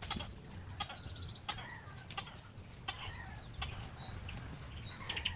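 Faint chickens clucking, with scattered short bird calls, over a low steady rumble.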